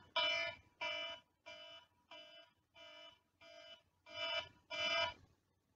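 Smartphone alarm ringing: a repeating electronic beep about three times every two seconds. It dips quieter in the middle, grows louder again, then stops about five seconds in.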